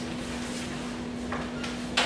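Steady low hum with one constant tone, with two brief scuffing or handling noises about a second and a half in.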